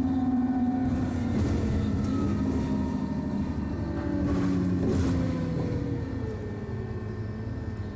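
Alexander Dennis Enviro400 double-decker bus heard from inside the passenger saloon while under way: a steady diesel engine and drivetrain drone with whining tones that shift in pitch, one falling slowly in the second half. The noise eases off a little near the end.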